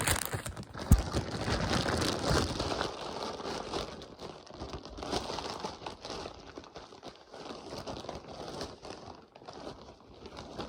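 Packaging being opened: crinkling and rustling of wrapping being handled and pulled apart, with many small crackles and a sharp knock about a second in, growing sparser near the end.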